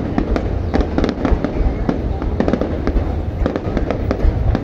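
Fireworks going off in quick succession: many sharp cracks and pops over a continuous deep rumble of aerial bursts.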